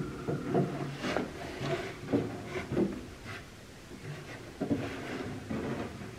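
Plywood board being shifted and knocked into place inside a wooden bunk frame: irregular wooden knocks and scrapes, with a quieter pause about halfway through.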